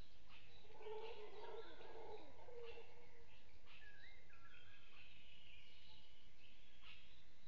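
Forest birds calling: many overlapping short chirps and whistles, some rising. A lower call sounds beneath them through the first two or three seconds.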